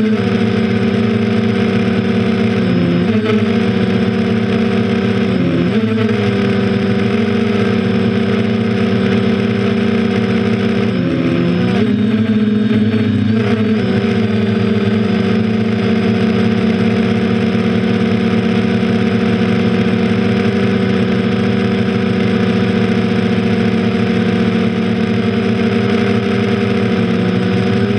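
Quadcopter's electric motors and propellers buzzing steadily, heard from on board, with brief wobbles in pitch about three, five and eleven seconds in.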